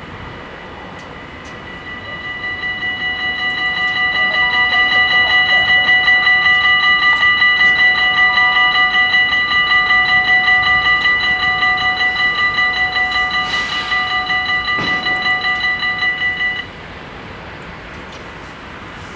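Dutch level-crossing warning bells ringing in rapid, even strokes while the half barriers lower. The ringing swells in over the first couple of seconds and stops suddenly once the barriers are down.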